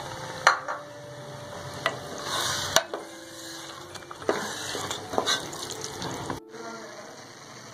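Wooden spatula stirring loose, watery dal mash (split urad dal) in a metal pot, scraping through it and knocking against the pot several times, over a light sizzle.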